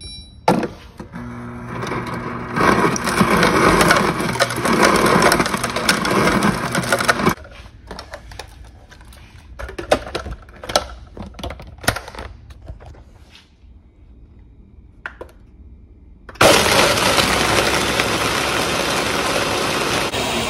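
Ninja countertop blender crushing ice into a thick protein shake: the motor runs loud with ice rattling and cracking in the jar, then stops abruptly about seven seconds in. Scattered knocks and clicks follow, then a second loud stretch of steady noise starts about sixteen seconds in.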